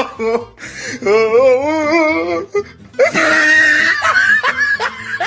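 Comedy edit sound effects over music: a voice with a strongly wavering pitch, then a long, high shriek about three seconds in, followed by short bursts like laughter.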